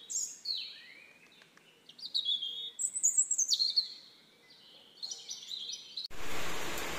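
Small birds chirping and calling in short, high phrases that fall in pitch. About six seconds in the sound cuts abruptly to a steady rush of heavy rain.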